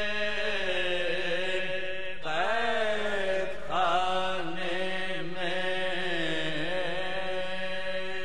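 Marsiya soz chanting: a male voice draws out long, sliding melismatic notes over a steady low drone.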